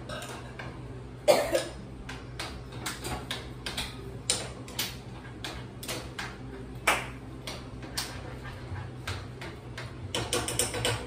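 Kitchen clatter: a string of sharp clicks and knocks from utensils and dishes handled on a countertop, the loudest about a second in, over a steady low hum.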